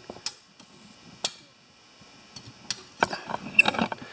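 Sharp clicks and taps of small metal tools against a Briggs and Stratton engine while the valve clearance is being checked: a few single clicks spaced out, then a quicker run of them near the end.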